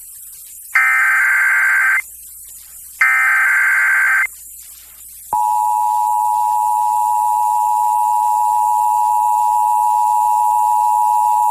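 Emergency Alert System SAME header data bursts, two short warbling digital tones about a second apart, encoding a Required Monthly Test. About five seconds in, the EAS two-tone attention signal (853 and 960 Hz) starts and holds steady.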